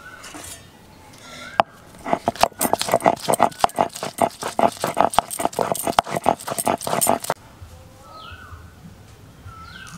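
Garlic cloves being crushed on a Bengali shil-nora, the grooved stone slab, with the hand-held grinding stone: a rapid series of knocking, crushing strokes lasting about five seconds, then stopping.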